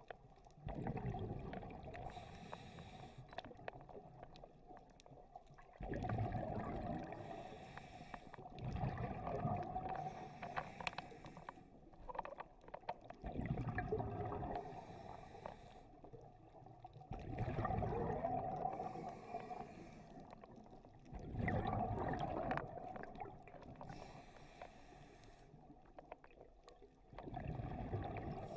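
Scuba diver breathing through a regulator underwater: a rush of exhaled bubbles every three to four seconds, with quieter gaps between breaths.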